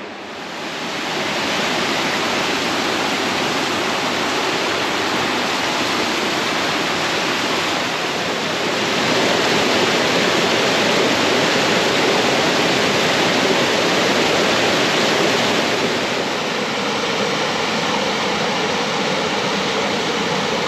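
Small creek waterfall pouring over rock ledges into a pool: a steady rush of falling water. It grows louder about a second in and is loudest in the middle.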